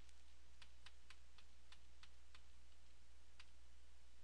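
Faint, irregular clicking at a computer, about nine light clicks in all, over a low steady hum.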